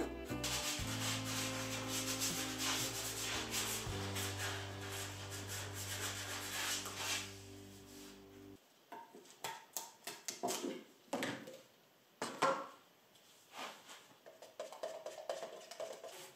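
Hand tools working a wooden chair-style leg: a spokeshave scraping in quick strokes over background music, then, once the music stops about eight seconds in, sandpaper rubbed back and forth along the wood in separate strokes.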